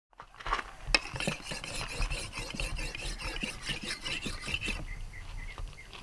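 A steel hooked blade being sharpened on a whetstone: quick repeated scraping strokes of metal over stone, which thin out to a few lighter strokes about three-quarters of the way through.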